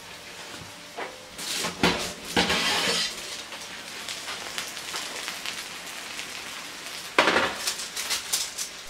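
A metal baking tray slid out of an oven with a scraping rattle about one and a half to three seconds in. About seven seconds in it is set down with a clatter on a glass-ceramic hob and slides, followed by a few light clicks.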